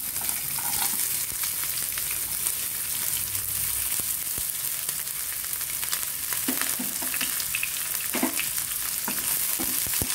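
Chopped onions frying in hot oil with cumin seeds in a non-stick kadai: a steady sizzle with fine crackles. From about six seconds in, a wooden spatula stirs them, with a sharp tap against the pan near the end.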